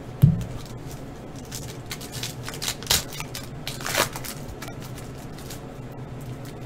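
Foil wrapper of a Panini Chronicles basketball card pack crinkling and tearing as it is ripped open by hand, in a run of crisp crackles for a few seconds. A single dull knock comes just before, the loudest sound.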